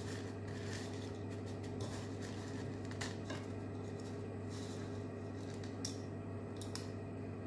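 Soft rustling and a few light clicks of crushed almonds shifting against a ceramic bowl as a wet, egg-white-coated dough ball is pressed and rolled in them by hand, over a steady low hum.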